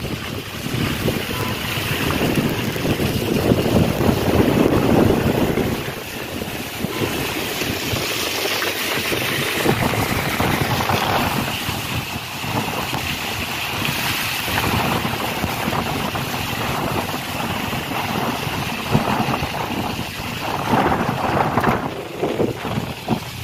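A Suzuki car driving on a rain-soaked road, heard from inside the cabin: a steady rush of tyre hiss on wet asphalt and wind noise. A heavier, deeper rumble fills the first six seconds, then the sound settles to an even hiss.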